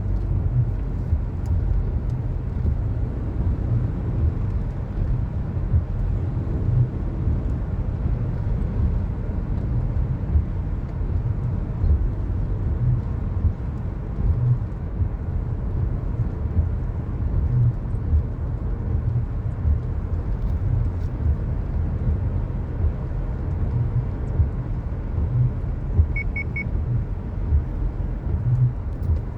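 Car being driven: a steady low road and engine rumble with irregular low thumps. A quick triple beep sounds about 26 seconds in.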